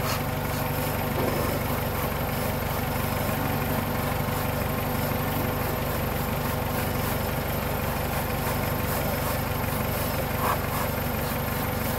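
Dodge Stratus engine idling steadily during a carburetor-cleaner spray test for vacuum leaks around the intake and injectors. The idle holds without stumbling, the sign that no leak is left.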